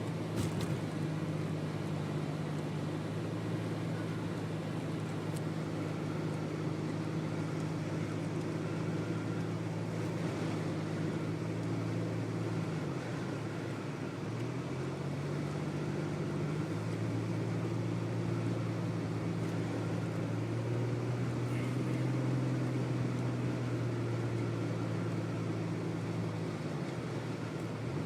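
Vehicle engine running while driving, over a steady hiss of road noise. The engine note drops about halfway through, then climbs back up and holds steady.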